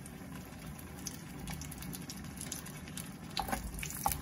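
Stripe-peeled aubergines frying in olive oil in a non-stick pan: a steady, gentle sizzle. A few short knocks come near the end as more aubergines are laid into the pan.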